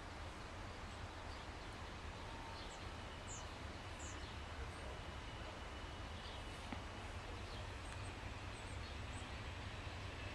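Faint outdoor background: a steady low rumble with a few short, high bird chirps about three to four seconds in.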